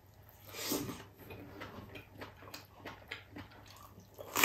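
Close-miked eating: a wet slurp as beef tripe is drawn into the mouth about half a second in, then soft clicking chewing, and a loud sharp crunch at the very end as a long green chili pepper is bitten.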